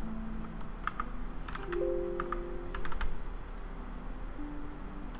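A handful of sharp computer keyboard clicks, scattered between about one and three and a half seconds in, over soft background music with long held notes.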